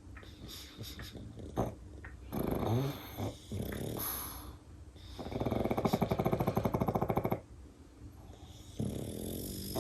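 Sleeping pugs snoring, a run of snoring breaths with one long, fluttering rattle of a snore about midway that is the loudest.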